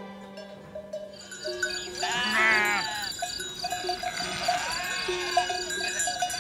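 Sheep bleating, a long wavering bleat about two seconds in and a fainter one around five seconds, over soft background music with held notes.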